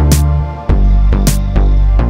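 Background music with a steady beat, deep sustained bass notes and a bright cymbal-like crash about once a second.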